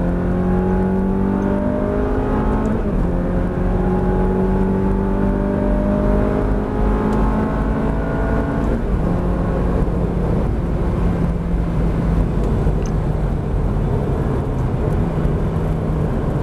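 Ferrari engine heard from inside the cabin, accelerating hard on a straight with its note climbing, with an upshift about three seconds in. About nine seconds in the note falls back and runs lower and steadier as the car slows.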